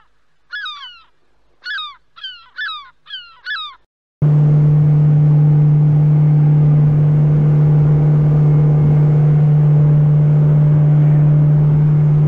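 Seven short, falling gull cries over about four seconds. Then the sound cuts suddenly to a motorboat under way: its engine runs with a steady low hum under a loud rushing noise.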